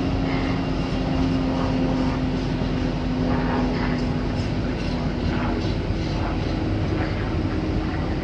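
Steady diesel drone of trains at a station: a Class 66 freight locomotive pulling container flat wagons away, with a passenger train standing alongside. A humming tone in the drone fades out a little past halfway and a slightly higher one takes over.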